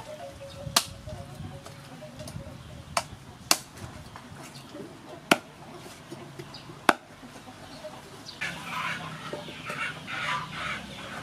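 Cleaver chopping raw chicken on a wooden chopping board: five or so sharp knocks, spaced a second or more apart. From about eight seconds in, a busier patch of bird calls takes over.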